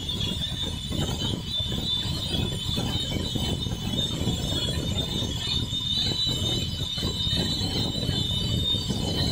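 A power saw cutting through vengai (Indian kino tree) wood: a steady high-pitched whine over a constant noisy rumble.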